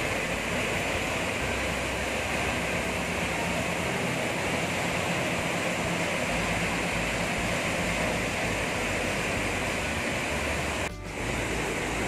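Steady rushing of a large waterfall, an even noise of falling water, with a brief dip in level near the end.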